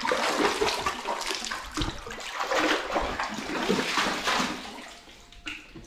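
Shallow cave water splashing and sloshing in irregular surges as someone moves through it; it dies down near the end.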